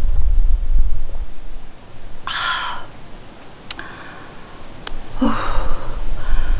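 Wind rumbling on the microphone, then a woman's breathy sigh of relief after a drink, a long exhaled 'haa' about two seconds in and a second, shorter voiced sigh near the end, with two sharp clicks between them.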